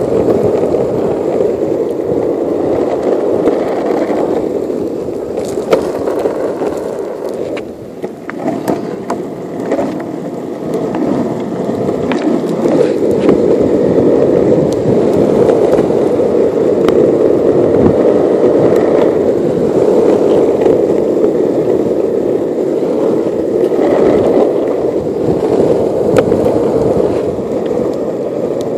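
Longboard's urethane wheels rolling fast over asphalt: a steady rumbling roar, with a run of sharp clicks and knocks and a brief dip in level about a quarter of the way through.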